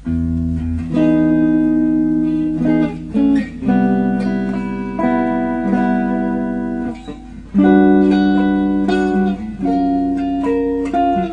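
Instrumental background music: held melody notes over a steady bass line.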